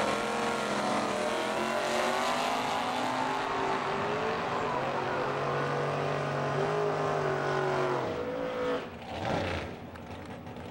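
Two Chevrolet drag cars launching side by side at full throttle. The engines climb in pitch, drop back at each gear change, then fade away down the strip about eight seconds in.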